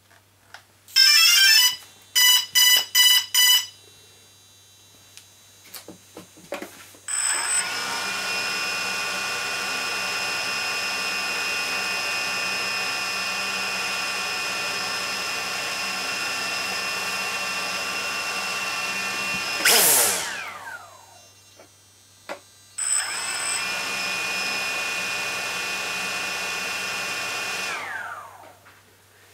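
DJI Phantom 2 Vision quadcopter powering on with a quick run of electronic start-up beeps, then its four T-Motor MN2214 brushless motors spin up and idle with a steady whine. After about twelve seconds they wind down with a falling pitch, then start again for about five seconds and wind down once more.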